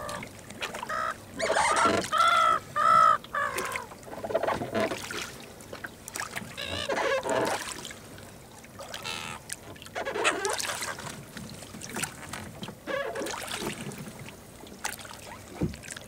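Gulls calling: a run of three loud calls about two seconds in, then scattered calls.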